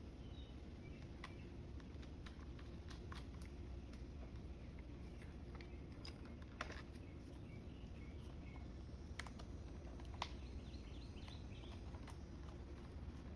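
Faint, scattered light clicks and taps over a low steady hum, with a few faint high chirps, likely birds.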